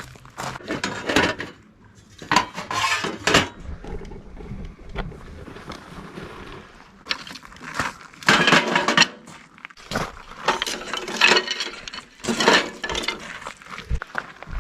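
Metal objects clinking and clattering in irregular bursts as gear is handled.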